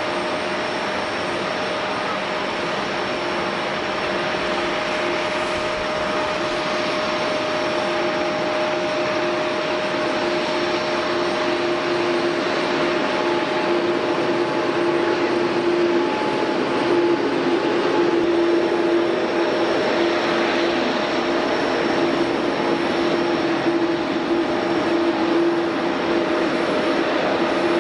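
Jet airliner engines running steadily: an even rushing noise with several steady tones on top, getting a little louder after about the middle.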